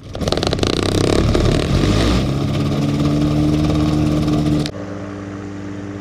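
Rotax 582 two-stroke engine on a Spectrum Beaver ultralight, pull-started by hand: it catches at once, runs roughly with rapid firing for about two seconds, then settles into a steady run. About 4.7 s in the sound cuts abruptly to a quieter, steady engine drone.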